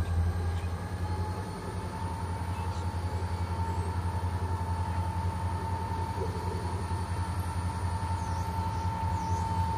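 An approaching diesel locomotive, a Chicago & North Western EMD SD50 with its 16-cylinder engine working under throttle, giving a steady, low, pulsing rumble with a thin steady tone above it.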